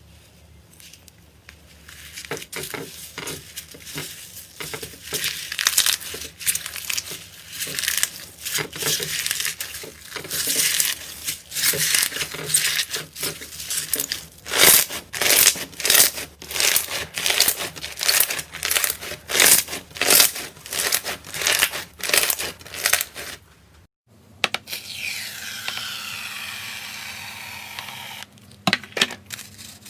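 Slime being worked, making quick, irregular crackling and crinkling sounds in dense bursts. About 24 seconds in it changes to a smoother, quieter working sound, with a few sharp clicks near the end.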